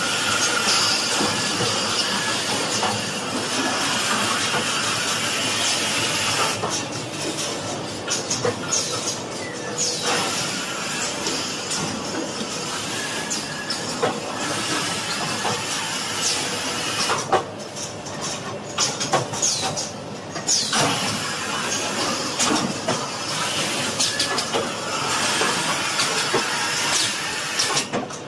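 Running A4 paper ream production machinery: a steady hiss of machine noise with scattered clicks and clacks, dipping briefly a couple of times about two-thirds of the way through.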